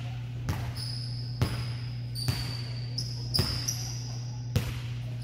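Basketball bouncing on a hardwood gym floor, about one bounce a second with a hall echo after each. High-pitched squeaks come between the bounces over a steady low hum.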